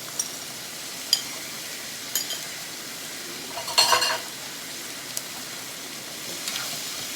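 Squid stir-fry sizzling in a hot pan as it is stirred, the spatula clicking against the pan now and then, with a louder clatter about four seconds in.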